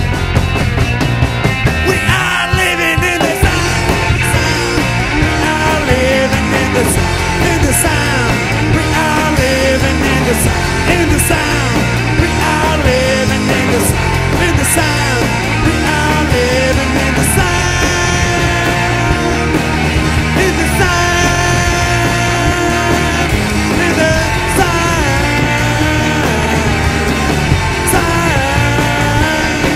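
Live rock band playing an instrumental passage: a bending guitar line over bass and drums, with regular cymbal strikes.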